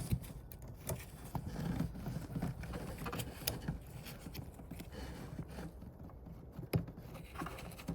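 Scattered small plastic clicks and handling noises as a bulb and its holder are fitted into a car's rear light cluster by hand, with one sharper click near the end.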